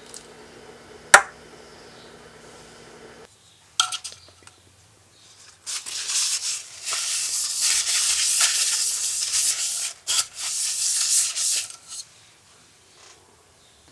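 A wire whisk clacks sharply once against a stainless steel pot about a second in, over a low steady hum that stops after about three seconds. Then comes a loud, rapid scrubbing of brush bristles across the inside of a square aluminium cake tin for about six seconds, with a brief break midway, as the tin is greased with corn oil.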